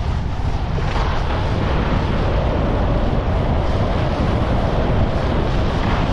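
Wind rushing over an action camera's microphone on a fast ski descent, a steady loud rumble mixed with the skis running over the snow.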